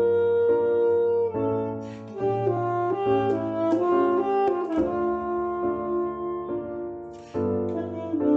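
Alto saxophone playing a melody: a long held note, then a run of shorter notes, softer for a while and louder again near the end.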